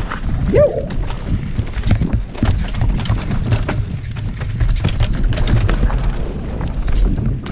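A mountain bike descending a rough dirt downhill trail: a steady wind rumble on the camera microphone with constant rattling and knocking from the bike over the bumps. A brief rising tone comes about half a second in.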